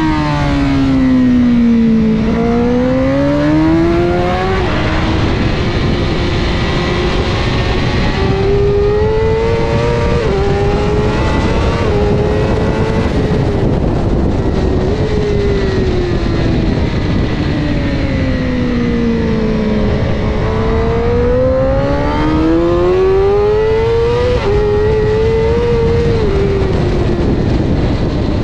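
Onboard sound of a Honda CBR1000RR superbike's inline-four engine at track pace. The engine note falls as the bike brakes in the first two seconds, then climbs hard through several upshifts. It falls again from about sixteen seconds in and climbs once more with upshifts near the end, with wind rush throughout.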